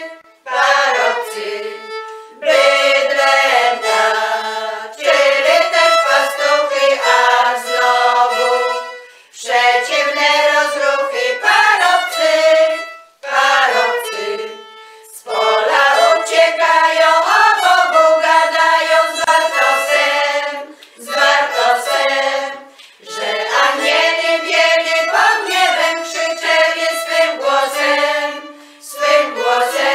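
Women's folk choir singing a Polish Christmas carol (kolęda) in phrases with short breaths between them, accompanied by a violin.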